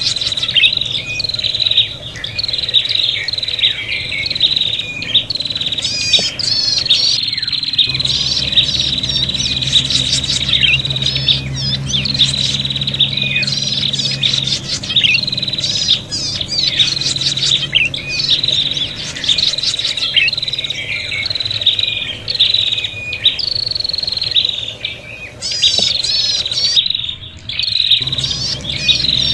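Prenjak (prinia) calling nonstop in rapid high chirps and trills, with several birds chattering over one another in the agitated, fighting calls used as a trapping lure. A low hum sits underneath for most of it.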